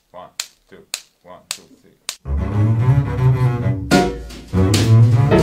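A count-in of sharp clicks, about two a second. About two seconds in, a double bass played with the bow (arco) comes in with loud, low, sustained notes.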